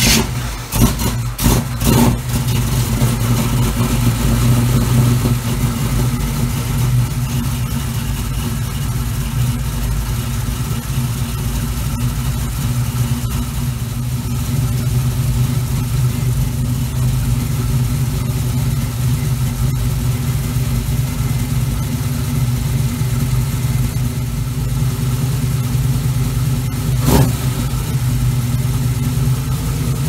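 Small-block Chevy 350 V8 just after starting, revved a few times in the first couple of seconds, then settling into a steady idle. A single sharp click is heard near the end.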